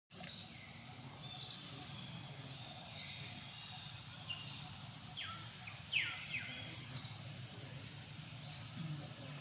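Wild birds chirping in the surrounding trees: many short, high chirps, with a few quick calls that fall in pitch about halfway through, over a low steady hum.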